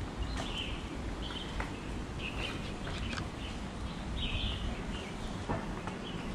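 Small birds chirping in short, high calls, several times a second or so apart, over a steady low rumble, with a few scattered light taps.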